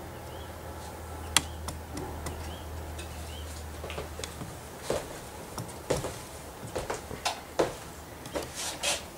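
Picture frame being taken down from the wall and carried: one sharp click a little over a second in, then a run of light knocks and handling noises in the second half, over a low hum that stops about four seconds in.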